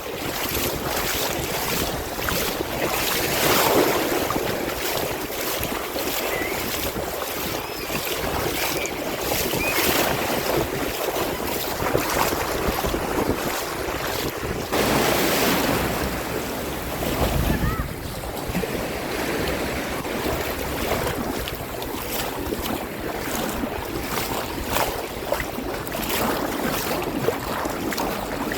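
Sea waves washing and sloshing, swelling up several times, with many small crackles of breaking water and wind buffeting the microphone.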